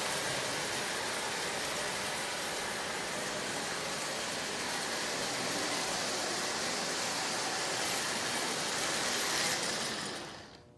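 Toy electric train, the Marx Commodore Vanderbilt locomotive, running on tinplate track: a steady rolling rumble and motor whir that fades out at the end.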